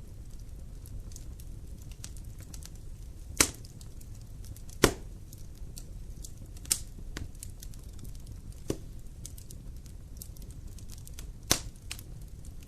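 Wood fire burning in a fireplace: a steady low rumble with light crackling and five sharp pops spread through, the loudest about five seconds in.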